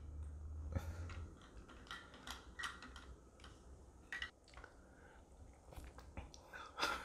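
Faint, scattered light clicks and taps of plastic Sushi Jenga blocks being handled with chopsticks.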